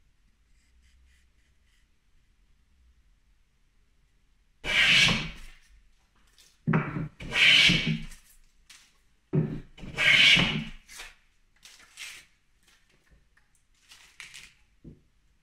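Wooden-bodied hand plane rubbing and scraping against a wooden workbench: three strokes of about a second each, each starting with a soft thump. Lighter rubs follow, then a small knock as it is set down.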